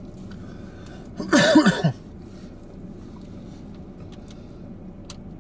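One short, harsh vocal burst from a person, cough-like, a little over a second in, over a steady low hum. A couple of faint clicks follow near the end.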